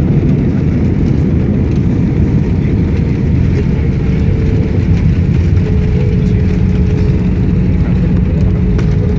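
Steady, loud rumble of an airliner's engines and airframe heard from inside the passenger cabin as the plane rolls on the ground after landing. A faint steady hum joins about three seconds in.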